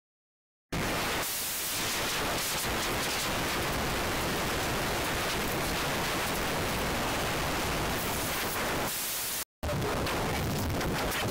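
Steady noise of a PATH subway car running, heard from inside the car, starting after a moment of silence. Near the end a cut brings a similar steady noise on an underground PATH platform.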